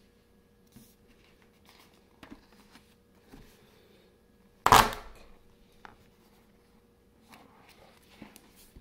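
Dry rotini pasta crushed under a paperback book pressed down by hand: one sharp, loud crunch a little past halfway, dying away within about half a second.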